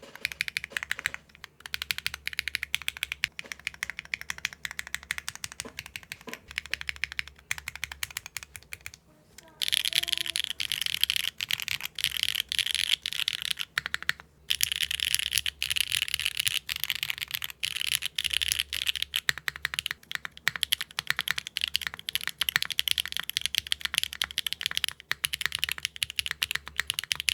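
Fast typing on a mechanical keyboard fitted with HMX linear switches (Cloud V2 and Sogurt) on a Neo60 Core with a carbon-fibre plate, GMK keycaps and no foam. There is a short pause about nine seconds in, after which the keystrokes sound brighter.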